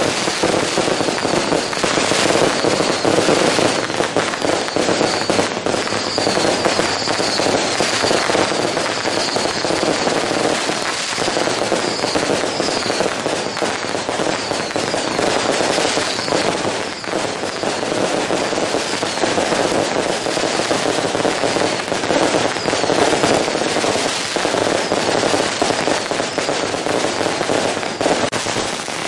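Long strings of firecrackers going off in a dense, unbroken crackle of rapid pops.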